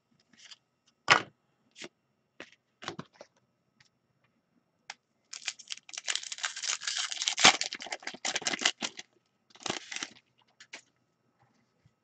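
Trading cards and their paper packaging being handled by hand: scattered light flicks and rustles, then about four seconds of dense crinkling and tearing in the middle, and a shorter rustle after it.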